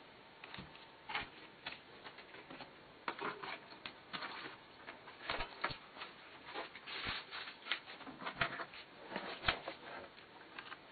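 Handling noise of a JBL Charge 2+ portable speaker: scattered light clicks, taps and rustles as the speaker is turned over in the hands, set down on the bench and picked up again.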